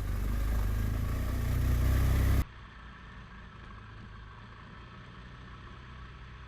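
BMW R1200GS boxer-twin engine running as the motorcycle rides slowly, with wind and road noise. About two and a half seconds in the sound cuts off abruptly to a much quieter, steady engine hum.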